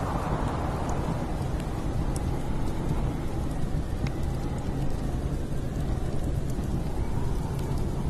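Steady storm noise, mostly a deep wind rumble, with a gust easing off just after the start. Sparse faint crackles come from a log fire in a wood stove.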